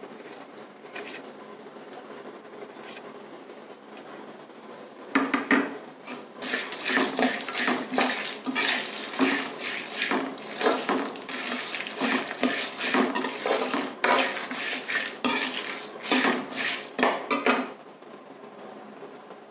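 Steel ladle stirring and scraping dry-roasting dal, peanuts and dried red chillies around an aluminium kadai: a fast run of metallic scrapes and clinks that starts about five seconds in and stops near the end.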